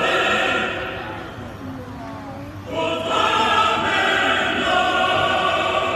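Choral music: a choir holding long sustained chords, dipping in the middle and swelling louder again about three seconds in.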